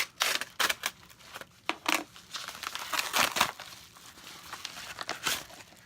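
Shipping packaging being opened by hand: crinkling and tearing in irregular bursts, thickest in the first few seconds, with one more rustle near the end.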